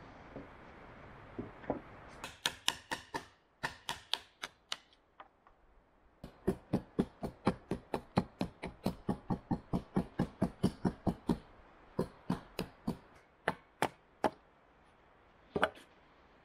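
Small hatchet chopping and splitting a wooden stick: quick repeated sharp strikes, about three a second, with a short pause partway through and a single last strike near the end.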